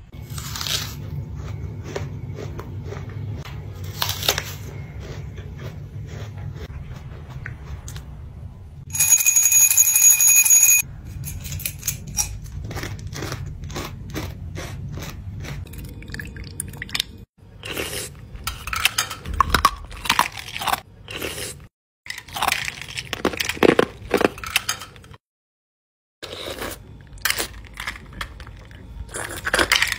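Close-up eating sounds: small red candies clicking and crunching in the mouth, and a spoon working in a glass of red drink, in short bursts. About nine seconds in comes a loud, bell-like ringing lasting about two seconds, which is the loudest sound.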